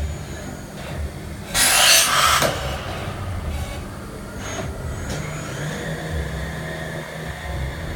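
CDL Aerre CL 40 80 CNC machine running through its cycle: a steady low motor hum, with a loud hiss of air lasting about a second near two seconds in, then a faint steady whine.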